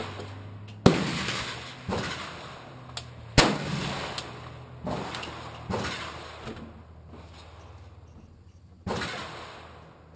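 AR-15 rifle in .300 AAC Blackout firing single aimed shots: about six sharp reports at irregular intervals, each trailing off in a ringing echo, with a couple of fainter pops between them.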